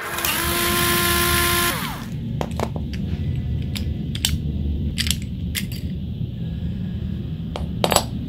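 A steady whine over a hiss for about two seconds, dropping in pitch as it cuts off, followed by scattered light metallic clicks and clinks as the two aluminium halves of a Deli DL4260 utility knife's casing are handled and opened.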